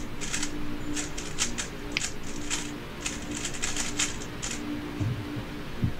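Plastic 3x3 speedcube clicking and clacking irregularly as it is handled and turned over in the hands during inspection, over a faint steady hum.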